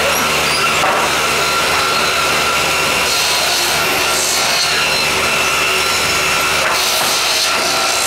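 Circular saw table running steadily and cutting wooden boards to length for pallets: a loud, even saw whine and cutting noise.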